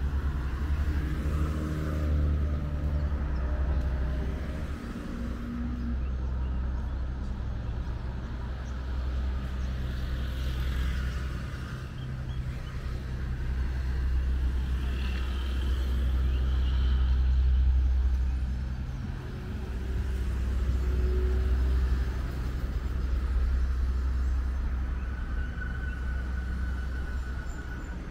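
Steady low rumble of motor vehicle engines, easing briefly a couple of times and building back up.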